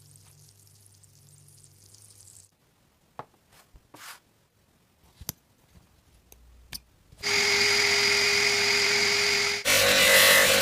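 A few light knocks, then a power tool starts about seven seconds in and runs steadily with a constant whine. Near the end it gives way to a louder, denser sound.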